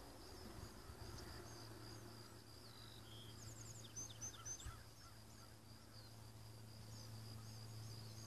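Faint small-bird chirps scattered through the quiet, with a quick run of short chirps about three and a half to five seconds in, over a faint steady high-pitched hum.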